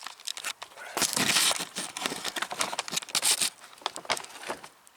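Irregular crinkling and rustling of greasy paper insulation on scrap copper cable cores being handled, in bursts, loudest about a second in.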